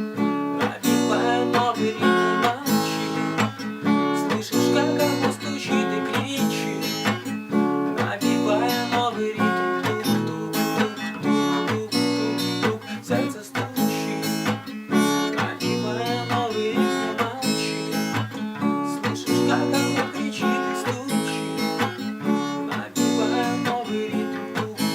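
Instrumental passage of a song: acoustic guitar strummed and plucked in a steady rhythm.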